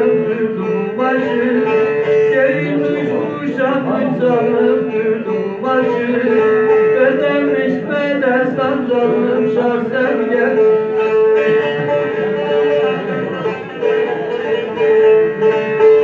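Bağlama (long-necked Turkish saz) playing a semah dance tune: a run of plucked notes over a steady droning note.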